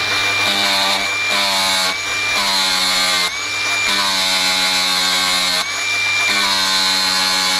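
Cordless angle grinder running at a steady high whine, its abrasive disc pressed against the steel teeth of a forestry mulcher rotor to sharpen them. There are five grinding passes of about half a second to nearly two seconds each, with brief breaks in which only the grinder's whine is heard.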